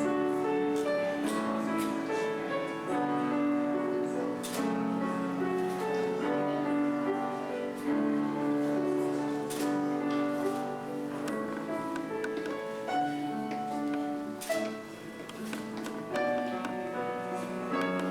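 Instrumental music led by piano, slow held chords changing about once a second.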